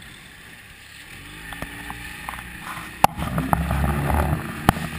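Inflatable boat's 25 hp outboard motor speeding up. Its note rises and grows louder over the first few seconds over wind and water noise, with two sharp knocks, one about three seconds in and one near the end.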